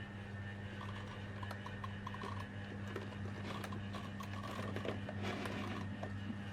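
Sekai 12-inch table fan (DFN 1202) running, with a steady low motor hum under the rush of air and scattered light clicks and rattles from the worn fan.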